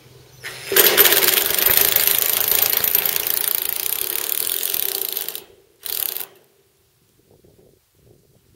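Ryobi cordless impact driver driving a screw for about four and a half seconds, a steady motor tone under a fast rattle, then a second short burst of the trigger.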